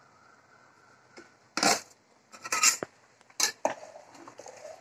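Metal kitchen pots and utensils clattering: a few sharp knocks and clanks about one and a half to three and a half seconds in, then lighter rattling.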